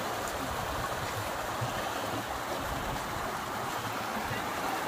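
Stream water running steadily, a constant rushing with no breaks.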